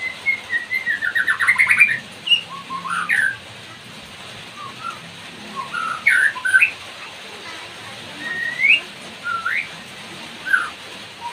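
White-rumped shama singing: a fast stuttering run of notes in the first two seconds, then separate clear whistled notes that slide up or down, with short pauses between them. Under the song runs a steady hiss of falling rain.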